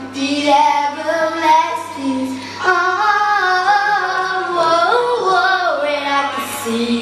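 A woman singing a song's melody, holding long notes and sliding between them, over a faint steady low hum.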